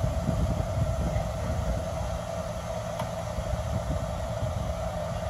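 Engines of heavy road-crew dump trucks running at a distance: a steady low rumble with a constant hum above it.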